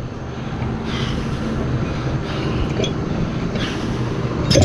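Diesel engine of heavy lifting equipment running steadily, with a sharp metallic clank right at the end.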